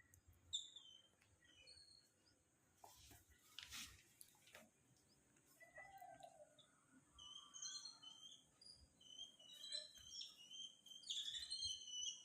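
Small pet birds chirping in short, high calls, sparse at first and busier and more continuous in the second half. A few brief soft rustles or knocks come about three to four seconds in.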